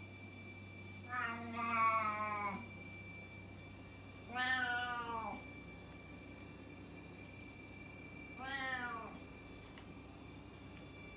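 Long-haired domestic cat giving three loud, drawn-out meows a few seconds apart. The first, about a second and a half long, is the longest, and each call after it is shorter.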